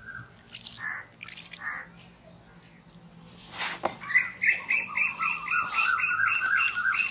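A bird calling: scattered short chirps at first, then from about four seconds in a fast, even string of short repeated notes, about four a second, each rising slightly in pitch.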